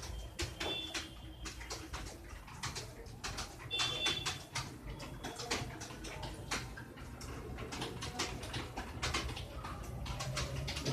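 Many computer keyboards being typed on at once: a steady, irregular clatter of key clicks.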